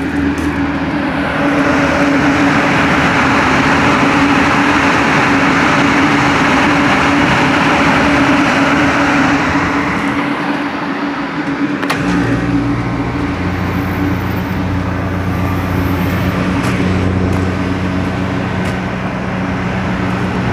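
2019 Carrier rooftop packaged air-conditioning unit starting up: a steady rush of air with a low hum. About twelve seconds in, a click is followed by a deeper hum as the compressor comes on.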